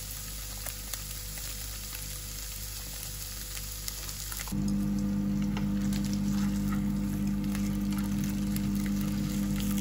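Salmon fillets frying in oil in a nonstick pan: a steady sizzle with small crackles. About halfway through, the sound changes suddenly to a louder, steady low hum that holds to the end, and the sizzle fades beneath it.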